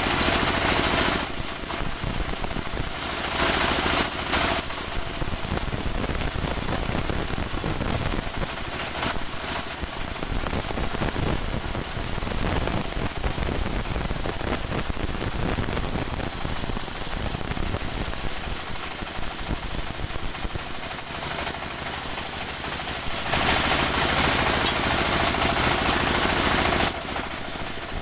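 Portable band sawmill running: its stationary engine chugging steadily under a high, steady whine from the band saw as the blade cuts through a saman (rain tree) log. The cutting noise swells for a few seconds near the end.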